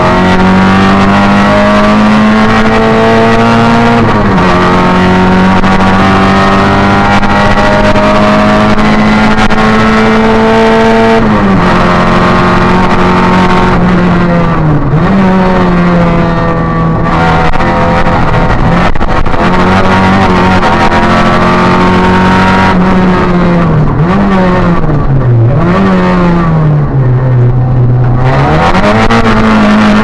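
Opel Astra rally car's engine under hard acceleration, heard from inside the cabin. The revs climb and drop sharply at each upshift, about 4 and 11 seconds in, then dip and rise again several times as the driver lifts off and accelerates through corners.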